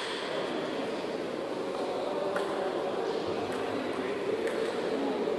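Sports-hall background: a steady low murmur, with three faint, sharp taps about a second apart in the middle.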